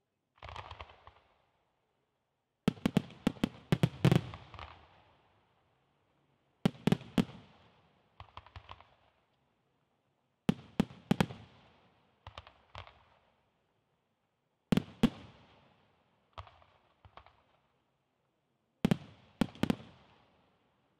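Aerial fireworks shells bursting in quick clusters of sharp bangs, a new cluster every two to four seconds, each bang trailing off after it.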